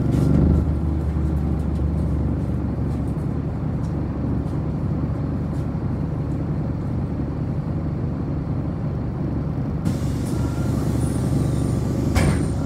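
A city bus's engine running at a steady idle, a low hum, with a little more engine noise in the first second as a neighbouring bus pulls away. A single sharp click comes near the end.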